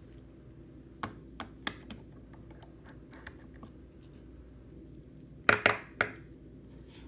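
Small sharp clicks and taps of hand tools against the opened iPhone 6 as the battery is worked loose: a few light ticks in the first two seconds, then a louder cluster of three or four clicks about five and a half seconds in.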